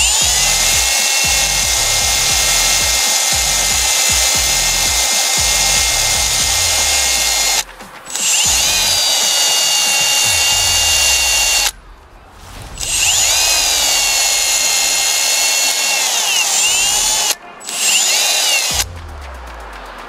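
Milwaukee cordless drill spinning a wire brush wheel against a rusty spark plug to clean it back to shiny metal. The drill runs in long bursts with a steady whine. It stops briefly three times, its pitch falling as it winds down and rising as it spins up again, and it stops near the end.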